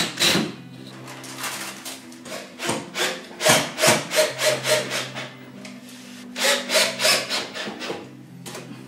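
Cordless drill boring into the wall in three runs of short bursts, a few a second, with brief pauses between the runs.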